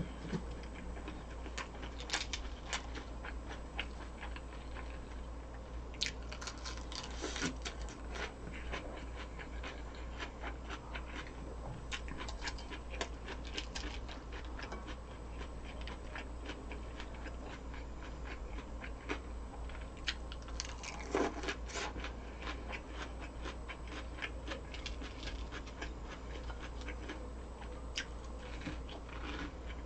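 Close-up eating sounds: chewing and crunching of fried food, a steady run of small crisp clicks and crackles with a louder crunch a little after the middle.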